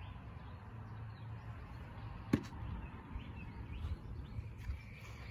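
Outdoor ambience: a low, uneven rumble of wind on the microphone with faint bird chirps, and a single sharp knock a little over two seconds in.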